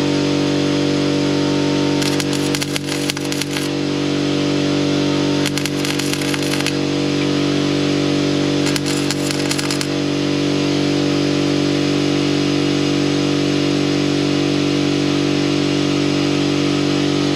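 Three short bursts of welding-arc crackle, each about a second long, as sheet-steel patches are tack or plug welded, over the steady hum of an air compressor running throughout. The bursts come in the first ten seconds, after which only the compressor hum remains.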